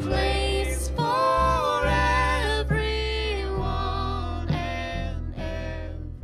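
Indie folk-rock song with a held, wordless sung vocal line over steady bass and guitar.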